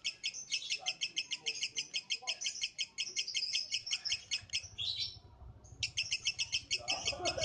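Lovebird singing a long, very rapid chattering trill of high chirps, about eight or nine notes a second. This is the sustained song that lovebird keepers call ngekek. The trill breaks off for a moment about five seconds in, then starts again.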